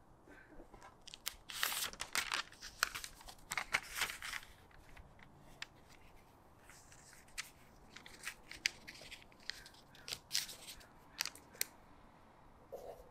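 A paper library slip handled against a paperback book: crisp paper rustling and crackling, densest in the first few seconds, then scattered small clicks and taps.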